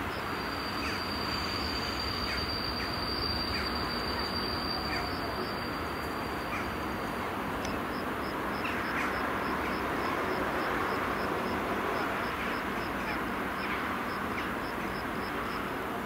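FS E656 electric locomotive drawing a train slowly into the station: a steady rolling rumble that grows a little louder. Over it, a thin high tone is held for about six seconds, then pulses about two or three times a second.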